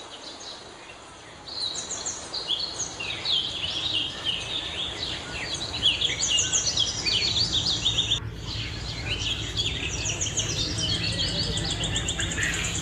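Many small caged birds chirping and twittering at once, a dense chorus of quick repeated notes over a low background rumble. It starts about a second and a half in and pauses briefly about eight seconds in.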